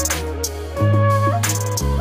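Background music: a melody over held bass notes that change about once a second, with drum hits.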